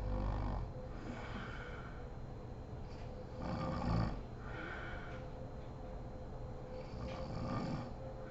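A sleeping woman snoring: three loud snores about three and a half seconds apart, with softer breaths between them.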